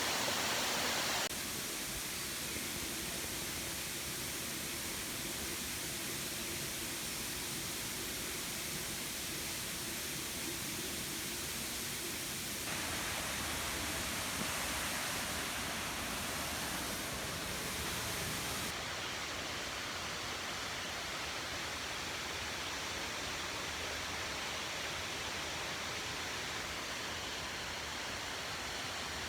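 Steady rush of a waterfall, with its tone changing abruptly about a second in and twice more later.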